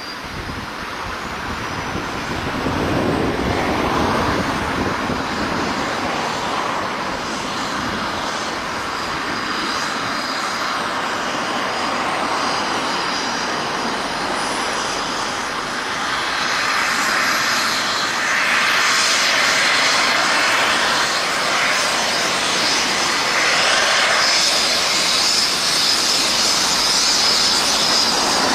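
Helicopter on the ground with its turbine engine running and main rotor turning: a steady rush of rotor noise with a high turbine whine. It grows louder a few seconds in and again past the middle as the rotor spools up before lift-off.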